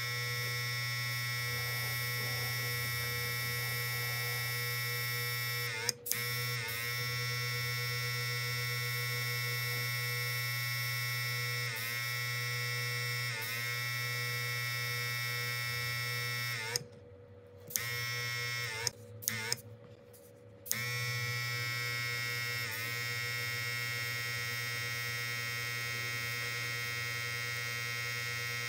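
Small airbrush compressor motor running with a steady electric hum, its pitch dipping briefly now and then. It cuts out for a moment about six seconds in, then stops and restarts several times in quick succession between about seventeen and twenty-one seconds.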